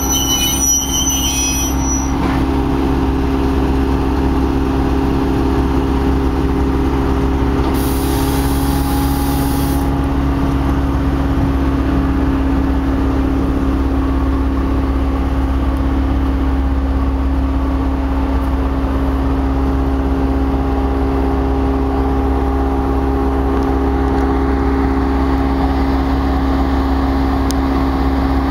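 Diesel switcher locomotive's engine running steadily, a low, even drone that holds the same pitch throughout.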